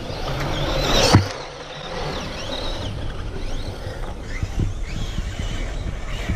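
Radio-controlled car being driven hard, its motor whining up and down with the throttle over tyre and ground noise. There is one sharp loud knock about a second in.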